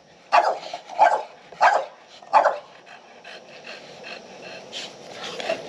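A dog barking four times in quick succession, about two-thirds of a second apart, over the first two and a half seconds.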